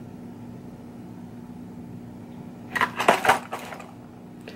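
Clear rigid plastic lure packages being handled, with a short burst of crinkling and clicking about three seconds in, over a steady low hum.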